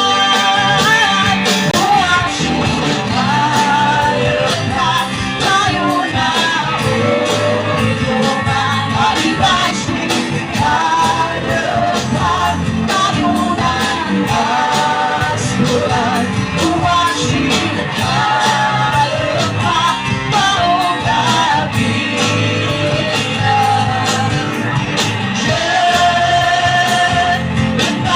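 A live band playing a song loudly, with a lead singer's voice over a steady drum beat and the band's instruments.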